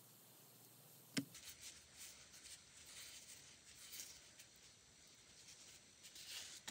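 A single sharp click about a second in, then faint crinkly rustling and rubbing of a lint-free nail wipe, damp with gel cleaner, being rubbed over a cured gel nail tip, with a last short rustle near the end.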